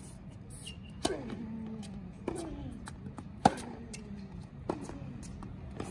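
Tennis rally on a hard court: the ball struck by rackets and bouncing, a sharp hit or bounce about every second, the loudest about three and a half seconds in and at the very end.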